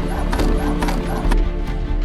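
Background music with a steady beat, with a quick run of about five short high sounds in the first second.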